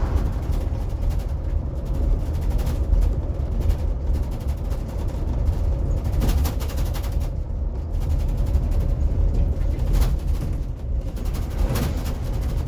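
Cabin noise of a Blue Bird electric school bus on the move: a steady low road rumble with a faint steady whine, broken by frequent sharp rattles and knocks from the bus body.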